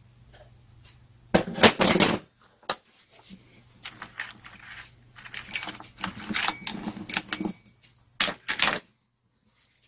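Steel chainsaw chain being taken off the guide bar, its loose links clinking and rattling in three bursts of metallic jingling.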